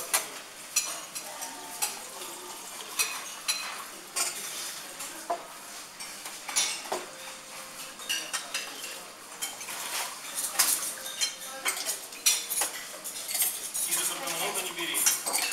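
Metal forks and a spoon clinking and scraping against ceramic plates, bowls and a soup cup as two people eat, in irregular sharp taps.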